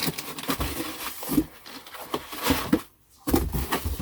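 Rustling, light clicks and taps of kit parts and packaging being handled, with a brief drop to near silence about three seconds in.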